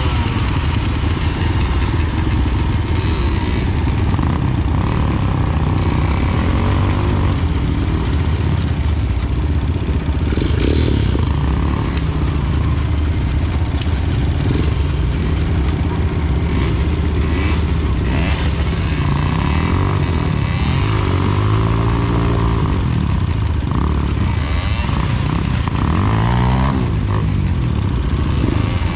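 Enduro dirt bike engine running under load, its revs rising and falling again and again as the throttle is worked.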